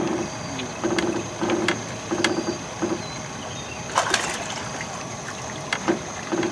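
A fishing reel being cranked in short repeated turns while a hooked fish is brought to the boat. About four seconds in, the fish splashes at the surface.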